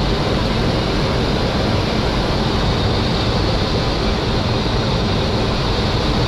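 Steady rushing noise on the flight deck of a Boeing 737 on final approach, from airflow around the aircraft and its engines, with the landing gear down and the flaps set for landing.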